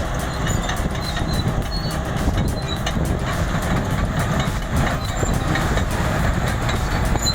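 Heavy diesel machinery running steadily, with a constant low engine note and mechanical noise.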